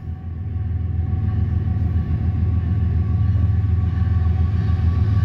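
CSX diesel locomotive leading a double-stack intermodal train at very slow speed, its engine running with a steady low rumble that grows louder as it approaches.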